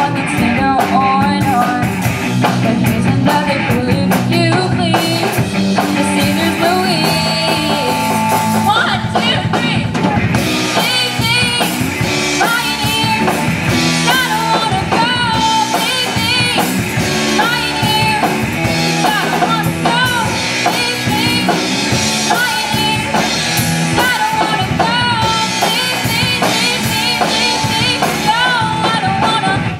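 Live rock band playing: a girl sings lead into a microphone over electric guitar, electric bass and a drum kit.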